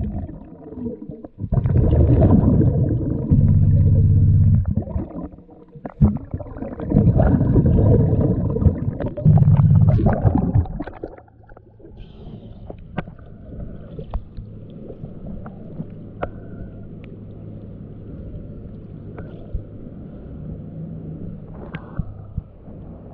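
Scuba diver breathing through a regulator underwater: loud bubbling exhalations alternating with quieter inhales for about ten seconds. The diver then surfaces and the sound drops to a steady low hum with small splashes and clicks of water.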